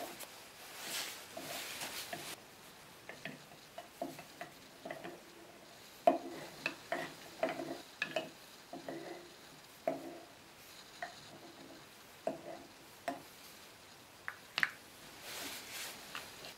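Small wooden binzasara plates clacking against one another as they are handled and stacked one by one, giving a series of short, hollow wooden knocks at an uneven pace, with brief rustling about a second in and near the end.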